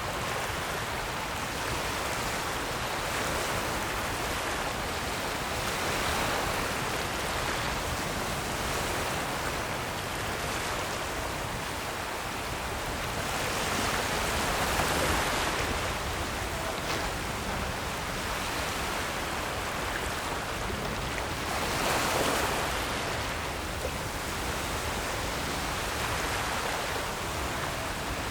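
Ocean surf: a steady wash of breaking waves that swells in loudness three times, roughly every eight seconds.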